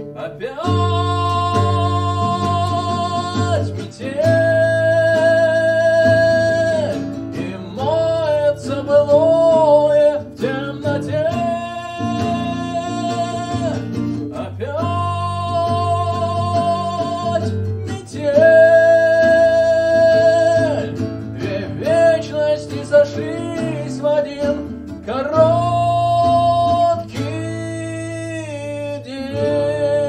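A man singing a melody in long held notes over a strummed classical guitar accompaniment.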